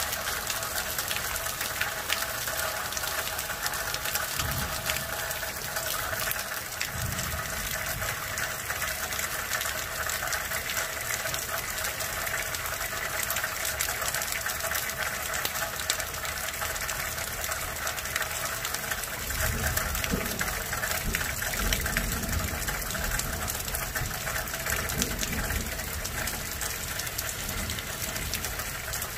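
Heavy thunderstorm downpour: rain pouring steadily, with low rumbles of thunder about 4 and 7 seconds in and a longer, stronger rumble from about 19 seconds in.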